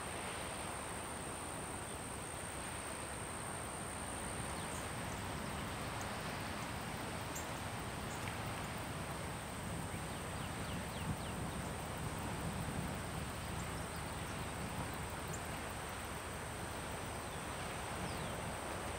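Outdoor meadow ambience: a steady high-pitched insect drone over a soft constant hiss, with a few faint chirps scattered through it.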